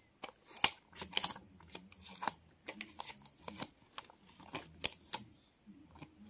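A paper dust-absorber sticker being pressed onto a phone's glass screen and peeled off by hand, with irregular light clicks, taps and crinkles.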